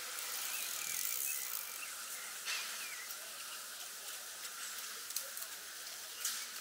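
Outdoor park ambience: a steady high-pitched hiss with a few faint bird chirps and scattered sharp clicks, three of them standing out.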